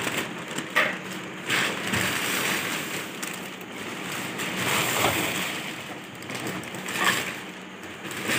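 Clear polythene wrapping rustling and crinkling in uneven bursts as it is handled and pulled off a hard-shell suitcase, with a few sharp clicks.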